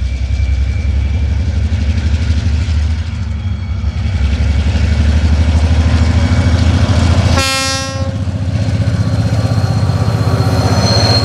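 TasRail diesel-electric locomotives hauling an empty ore train, their engines working with a deep rumble that grows louder as the train approaches. One short horn blast sounds about two-thirds of the way through, and a thin high wheel squeal sets in near the end as the train rounds the curve close by.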